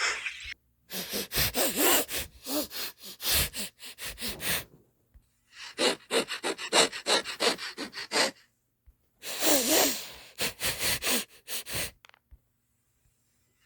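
A lion sniffing: rapid series of short, noisy sniffs and snuffles through the nose, in three separate bursts with short pauses between them.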